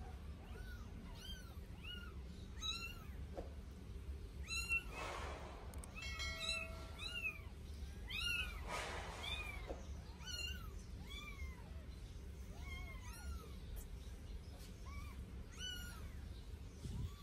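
Newborn sphynx kitten mewing over and over, thin high mews about one or two a second, each rising and falling in pitch. Two brief rushes of noise cut in, about five and nine seconds in.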